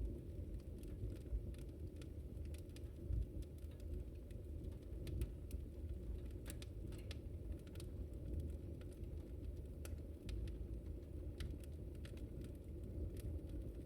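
Wood fire burning, with a steady low rumble of flames and irregular sharp crackles and pops, several a second.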